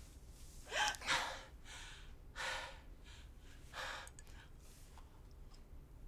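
A woman gasping for breath: four heavy breaths a second or so apart, the first with a short rising catch in the voice.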